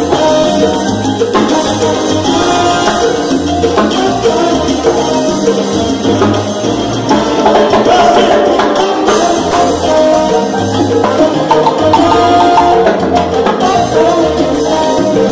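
Live salsa band playing, with timbales struck with sticks to the fore and trombone lines over the rhythm.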